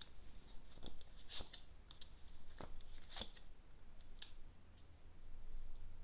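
Tarot cards being handled and laid out: a few faint snaps and taps, about five in a few seconds.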